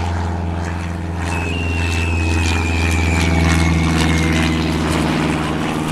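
Propeller airplane engine droning steadily. A thin high whine comes in about a second in and slowly falls in pitch until it fades out around four and a half seconds in.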